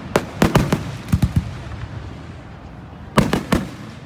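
Fireworks bursting: sharp bangs in quick clusters, several in the first second and a half, a lull, then another group a little after three seconds.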